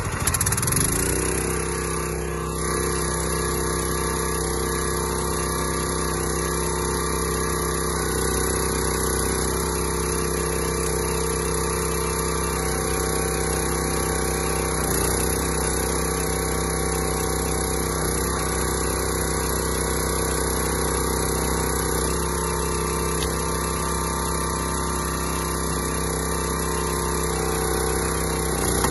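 A log splitter's small single-cylinder gasoline engine catches at the very start just after a pull start, then runs steadily at a constant governed speed.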